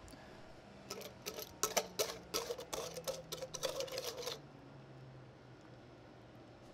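Wire whisk clicking and scraping against a stainless steel mixing bowl as a thick pecan topping is worked out of it: a quick, irregular run of light metallic clicks that stops about four seconds in.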